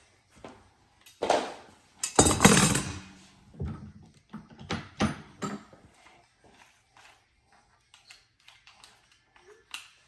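Metal hardware and tools being handled while fitting a TV mount: scattered clicks and knocks, with two louder rustling scrapes about one and two seconds in.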